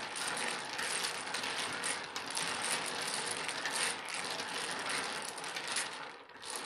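Double-six dominoes being shuffled ("washed") face down by hand on a wooden table: a continuous clatter of tiles clicking and sliding against one another, dying away near the end.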